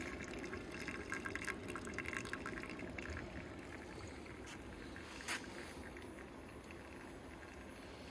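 Melted beeswax and condensed steam water dripping and trickling from the drain hole of a steam wax melter into a pot, over a steady hiss. The drips come thickest in the first few seconds, with one sharper click about five seconds in.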